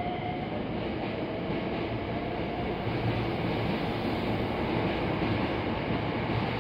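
Hankyu 9300 series electric train pulling out of the station and accelerating past at close range: a steady rumble of wheels and running gear, with the traction motors' whine rising in pitch.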